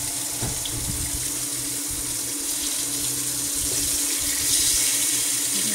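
Floured smoked milkfish (tinapang bangus) sizzling steadily in hot oil in a nonstick frying pan. The sizzle grows a little louder about four and a half seconds in, as a piece is turned with a spatula.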